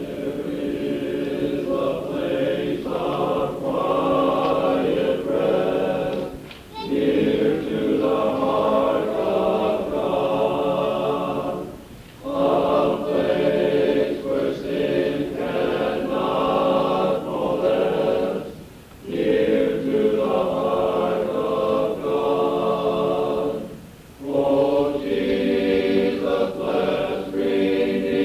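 Men's chorus singing in harmony, in long phrases broken by short pauses about every six seconds. It is heard from an old cassette tape recording, with no treble above about 4 kHz.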